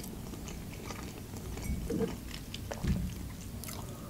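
Close-miked mouth sounds of chewing a baked lavash pie stuffed with meat, sausage and cheese: soft wet clicks, a little louder about two and three seconds in. Near the end comes a sip from a cup of 3-in-1 coffee.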